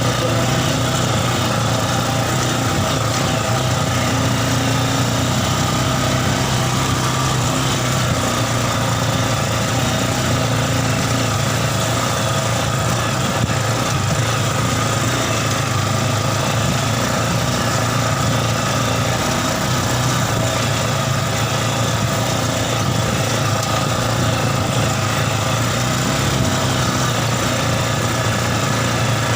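Yamaha Scorpio Z single-cylinder four-stroke motorcycle engine in a mini buggy, running steadily at an even engine speed.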